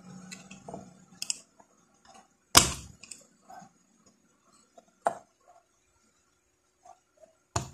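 Flat screwdriver tip clicking and scraping against the metal lock tabs of an electric fan's bushing holder as they are pried up, with small ticks and a few sharp clicks, the loudest about two and a half seconds in.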